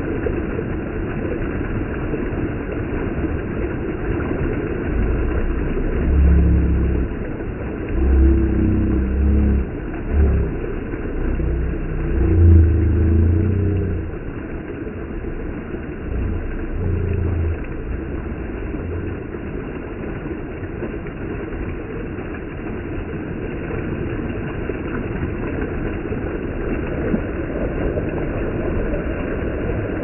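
Shallow stream water rushing and splashing over rocks around bare feet, a steady noise. Between about 5 and 18 seconds in, several louder low rumbles come and go, the loudest about 12 to 14 seconds in.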